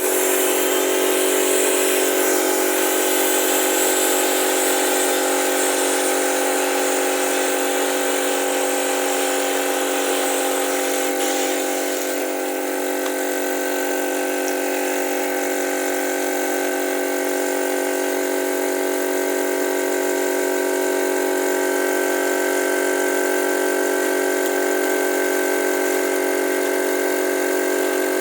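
Compressed-air vacuum gun attachment running with the air compressor behind it: a steady rushing hiss over a constant hum of several tones. The high hiss eases slightly about twelve seconds in.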